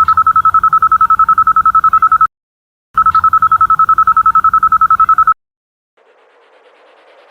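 Mobile phone low-battery warning: a single high electronic beep tone pulsing rapidly, about ten times a second, in two bursts of about two seconds each with a short gap between. A faint hiss rises near the end.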